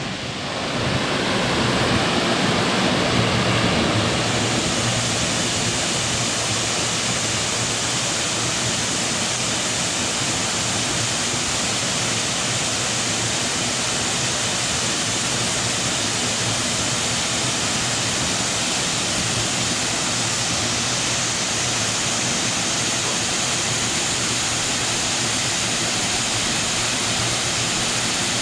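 Waterfall plunging off a rock cliff into a pool close by: a steady, dense rush of falling water, a little louder in the first few seconds.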